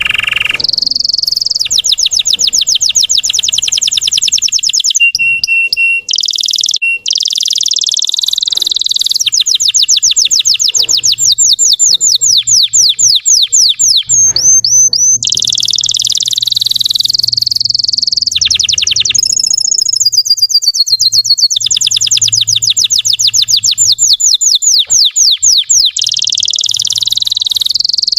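Russian canary singing a long, high-pitched song of rapid repeated trills, switching from one trill phrase to the next with brief breaks.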